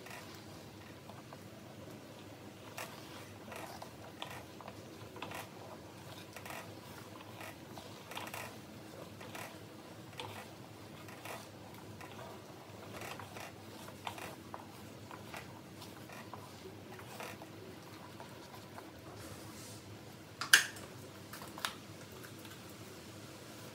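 Wooden spatula stirring and scraping bubbling liquid in a metal wok, with small irregular clicks and scrapes every second or so over a low simmering hiss. About twenty seconds in comes one sharp knock of the spatula against the pan, then a lighter one.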